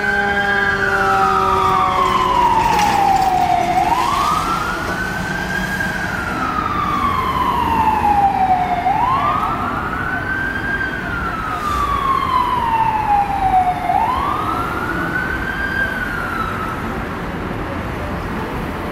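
Fire engine siren wailing: its pitch rises quickly and falls slowly, about once every five seconds. It stops near the end, leaving only traffic noise.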